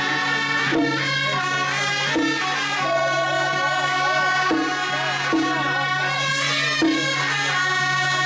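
Traditional Taiwanese temple ceremonial music: a reedy wind melody held over a steady low drone, with short percussion strokes at irregular intervals of about a second.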